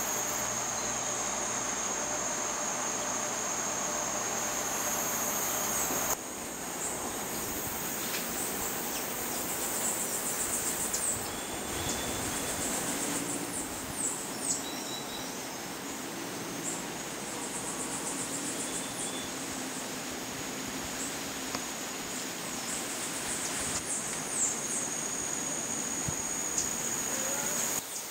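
Tropical forest ambience of insects calling: a steady high-pitched whine and repeated bouts of fast, pulsed high trills, with a few short high chirps. The background changes abruptly about six seconds in.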